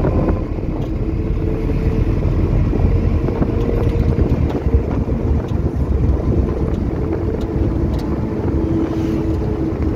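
Steady road and engine rumble heard inside a moving van's passenger compartment, with a faint hum running under the noise.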